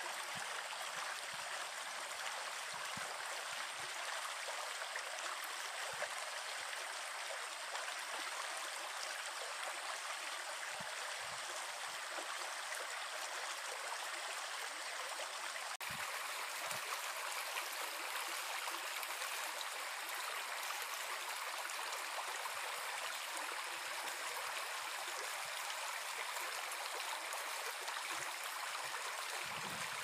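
Small shallow brook babbling steadily over branches and logs, an even rushing and trickling of water.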